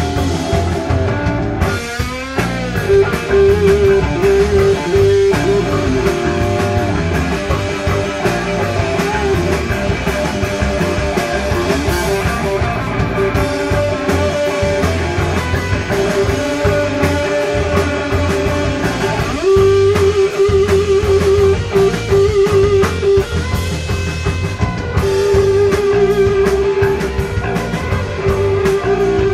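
Live desert/stoner rock band playing a loud instrumental passage: electric guitar holding long, wavering notes over a drum kit.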